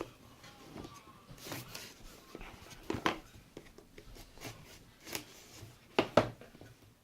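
Cardboard box and packaging being handled and moved: a handful of short knocks and rustles a second or two apart, the loudest a pair near the end.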